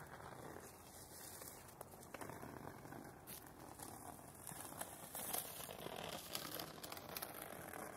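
Portland streetcar cabin noise, a low rumble with faint rattles and scattered crackly clicks as the car rolls slowly into a stop.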